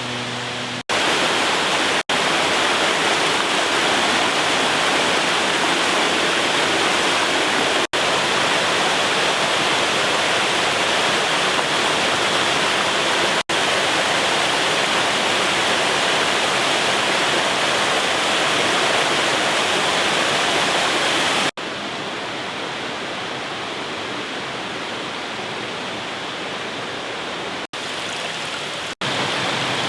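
Steady rush of water from a waterfall, cut by several abrupt momentary breaks, after each of which it comes back at a slightly different level, quieter in the last third.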